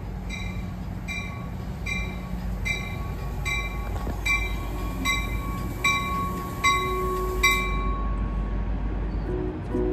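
A Metro-North commuter train pulls in, its bell ringing about ten times at an even beat of a little more than one strike a second, then stopping near the end. Under the bell runs the low rumble of the train rolling into the station.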